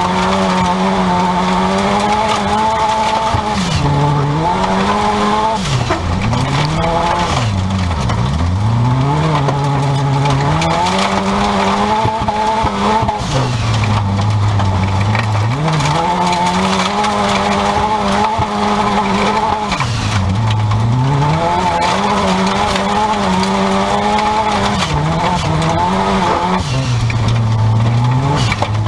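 Seat Ibiza 16v turbo stock car's engine heard from inside the caged cabin at racing speed, its note climbing under power and dropping sharply each time the throttle is lifted for a corner, several times over, over a constant rush of tyre and dirt-track noise.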